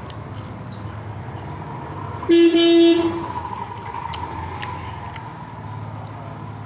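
A vehicle horn honks once, a little over two seconds in: a steady single-pitched toot lasting under a second.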